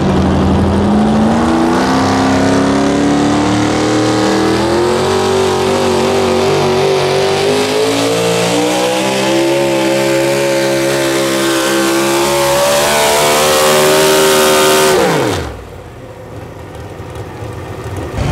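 Modified four-wheel-drive pulling truck's engine running hard while hauling the sled, its pitch climbing steadily for about ten seconds and then holding high. About fifteen seconds in, the throttle is cut and the engine note drops away sharply, marking the end of the pull.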